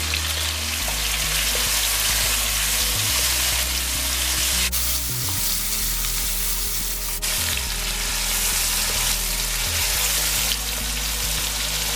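Chicken, ground garlic, peppers and tomato paste frying in hot oil in a wok: a steady, loud sizzle.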